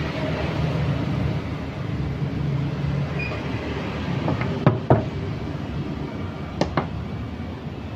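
Metal knocks and clicks as an engine's recoil pull-starter is taken apart with a metal rod on a concrete floor: two sharp knocks a little past halfway and two more near the end. A steady low rumble runs underneath.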